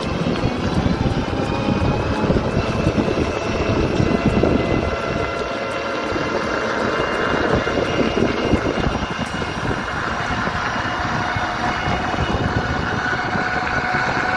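Riding in a Terra Motors electric rickshaw (toto): a steady rush of wind and road noise, with the faint whine of its electric motor drifting slowly up in pitch.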